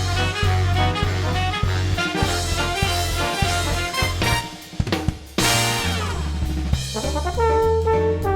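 Instrumental background music led by brass, with trumpet and trombone over a drum kit and a steady bass line. It thins out briefly about four and a half seconds in, then comes back full about a second later.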